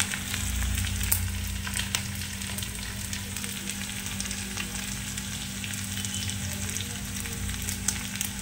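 Shallots, ginger, green chilies and garlic frying in hot oil in a metal wok-style pan: a steady sizzle with scattered pops, as curry leaves go in and a spoon stirs the pan. A steady low hum runs underneath.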